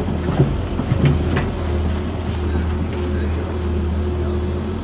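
Excavator engine running steadily with a low hum, with a few sharp knocks from the machine about half a second and just over a second in as the bucket digs.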